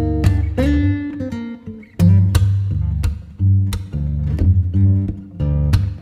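Background music: plucked guitar notes over a steady low bass line.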